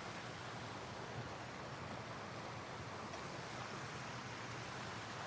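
Faint, steady hiss of room tone and microphone noise, with nothing else happening.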